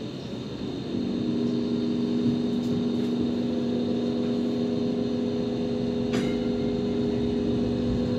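Hong Kong Light Rail car running along the track: rumbling wheel and rail noise, with the traction motor's steady hum of several held tones coming in about a second in. A single sharp click about six seconds in.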